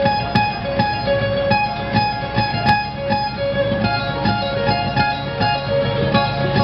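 Acoustic guitar played solo on stage: an instrumental passage of quickly picked notes, several a second, that ring on over one another.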